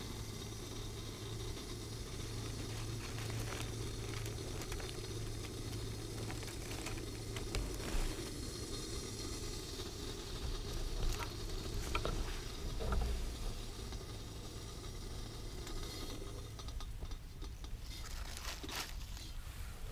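Wood gasification camp stove burning with a steady hiss, with scattered knocks and clicks from handling the kettle and camera, a cluster of them near the end.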